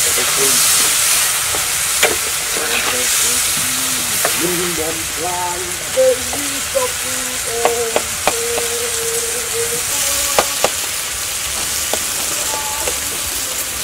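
Food sizzling in a hot wok while a metal spatula stirs it, with the steady hiss broken by sharp clicks and scrapes of the spatula against the pan several times.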